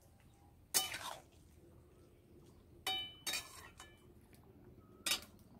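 Metal spatula clinking and scraping against a metal kadai (wok) while stirring curry: four short strikes, the one about halfway through ringing briefly.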